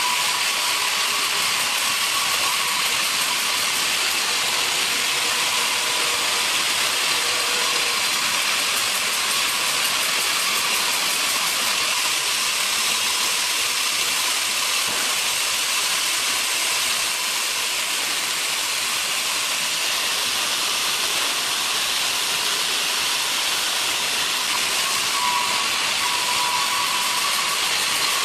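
Portable sawmill running, its saw cutting a log into slabs: a steady, loud, high-pitched noise, with a faint steady whine near the start and again near the end.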